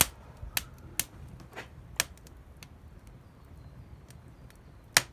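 Wood fire crackling: sharp pops from the burning wood, several in the first two seconds and one loud pop near the end, with faint ticks between.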